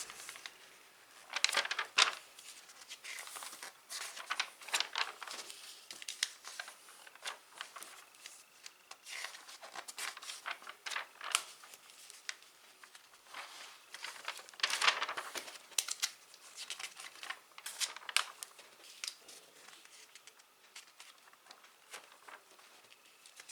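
Paper pages of a sticker album being turned and handled: irregular rustling and crinkling, with louder page flips about two seconds in and about fifteen seconds in.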